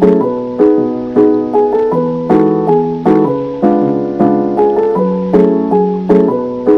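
Background music: a piano-like keyboard playing a repeating chord pattern, its notes struck in a steady, even rhythm.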